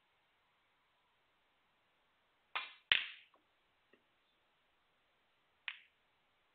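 Snooker balls being struck on the table. About two and a half seconds in, the cue tip strikes the cue ball, followed at once by a louder, sharper ball click. After that come a couple of faint ticks and another single ball click near the end.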